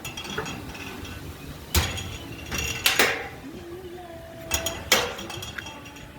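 Sharp metal clanks and clinks from a smoker made out of a steel hot water heater tank being handled, likely its doors. There are three loudest knocks, about two, three and five seconds in, each ringing briefly, with lighter clinks between them.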